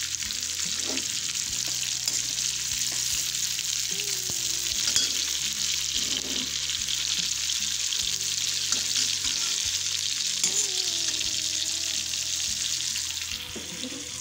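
Strips of salted bitter gourd sizzling steadily as they fry in hot oil in a steel wok. A slotted steel spoon stirring them makes scattered clicks and scrapes against the pan.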